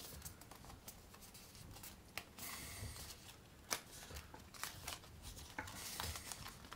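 Faint rubbing and scraping of cardstock as a Foldscope's paper sample stage is pushed through the slots of its card panning guide, with a few small clicks and taps, the sharpest about halfway through.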